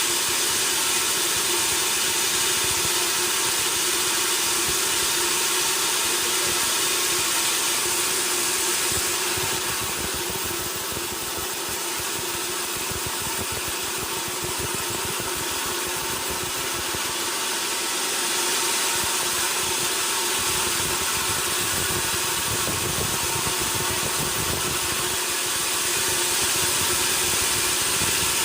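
Sawmill machinery running steadily: a continuous mechanical hum with a few steady tones over a hiss. It drops a little in loudness for several seconds in the middle, then comes back up.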